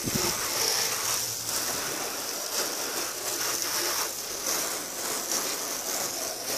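Strong jet of water from a hose-end spray gun, its soap canister removed, hitting a pickup truck's body and bed in a steady spray and splatter as the suds are rinsed off.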